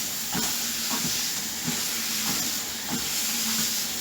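Trojan treadmill running at its slowest speed with a person walking on the belt: soft footfalls about every 0.6 s over a steady hiss and a low motor hum.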